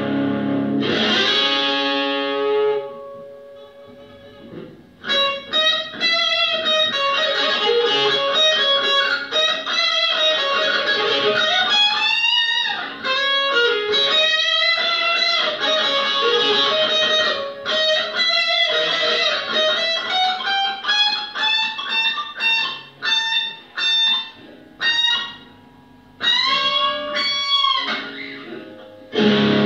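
Electric guitar played through an amplifier: a lead of quick single-note runs with string bends, including a long slow upward bend in the middle. The playing breaks off briefly twice.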